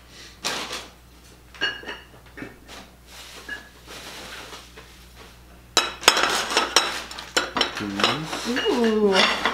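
China plates and dishes clinking and knocking together as they are handled on a table: a few separate knocks at first, then busier clattering from about six seconds in.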